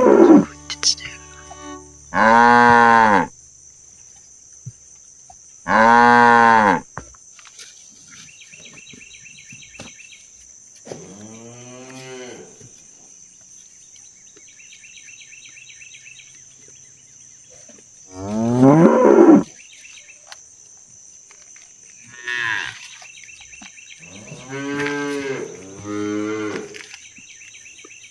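Cattle mooing: about seven separate moos, some rising and some falling in pitch, the loudest at the start and around the middle. A steady high thin tone and faint chirping run underneath.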